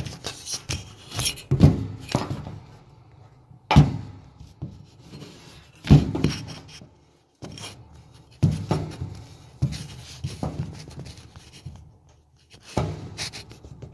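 Hands working on the dryer's idler pulley and its spring: a run of sharp metal knocks with scraping and light rattling between them.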